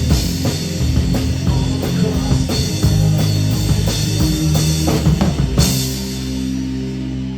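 Rock music with a drum kit and guitar. The drums stop a little past three-quarters of the way through, leaving held guitar chords ringing on.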